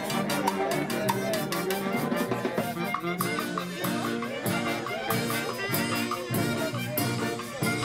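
Live band of horns, violins and harp playing a lively dance tune, with a drum and a metal shaker keeping a steady, quick beat.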